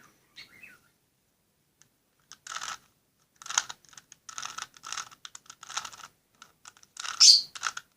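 Plastic Rubik's cube being twisted by hand: after about two seconds of quiet, a quick run of about ten short clacking turns, the loudest near the end, the final moves of a solve.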